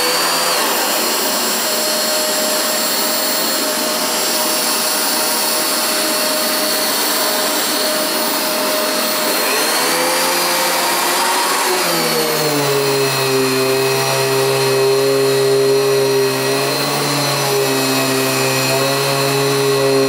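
Riccar Brilliance R30P upright vacuum cleaner running, with a steady motor whine, as it sweeps a hard floor. About twelve seconds in, as it moves onto carpet, its tone shifts to a lower, steadier hum.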